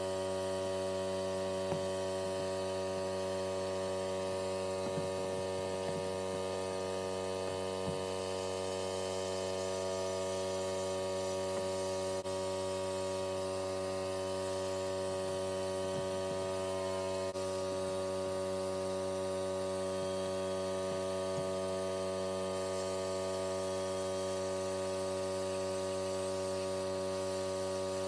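Steady electrical hum from a running machine, made of many evenly spaced tones, unchanging throughout, with a few faint ticks.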